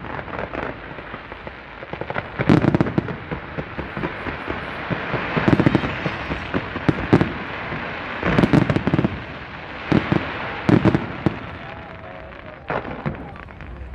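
Fireworks display: clusters of sharp bangs every second or two, about seven in all, over a continuous crackling hiss of bursting sparks.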